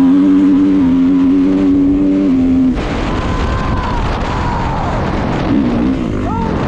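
Dirt bike engine held at steady high revs for about two and a half seconds, then the note drops, with revs rising and falling under rushing wind and trail noise.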